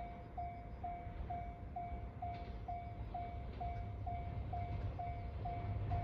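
Japanese railway level crossing's electronic warning bell ringing, an even ding about twice a second, each a short tone falling slightly in pitch: the crossing is closed for an approaching train.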